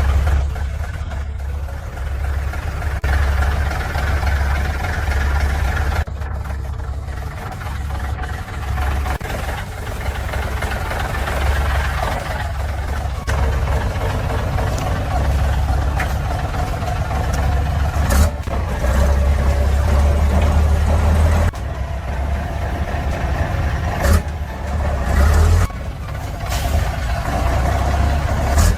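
Heavy truck engine running under load, its low rumble rising and falling as it revs, with a few sharp knocks in the second half.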